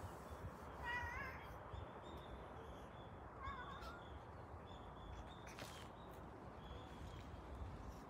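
A cat mewing twice, short wavering calls about a second in and again about three and a half seconds in, against a faint steady hiss.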